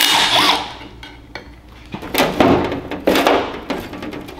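A short burst from a cordless impact driver on the transmission's clutch pulley right at the start. Then metal clanks and scrapes as the cast Polaris transmission case is shifted and turned in a metal oil pan on a steel table.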